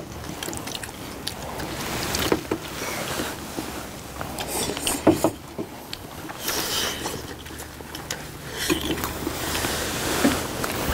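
People eating at a table: slurping noodle soup and chewing, with sharp clicks of chopsticks and spoons on ceramic bowls, over a low steady rumble.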